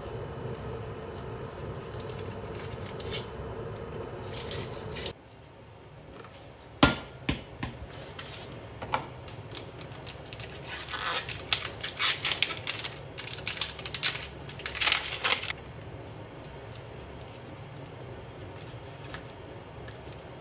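A wooden spatula taps and scrapes in a saucepan over a steady hum. The background then drops suddenly, and a sharp click is followed by several seconds of crinkling as the plastic tray of Hayashi rice roux is peeled and unwrapped.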